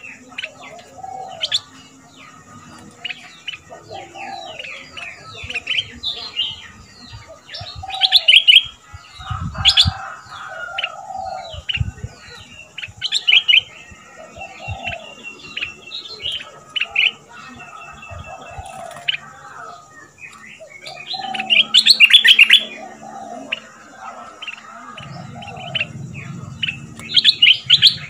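Caged stripe-throated bulbul singing in quick bursts of chirping phrases, loudest about eight and twenty-two seconds in. A lower call repeats every second or two beneath it.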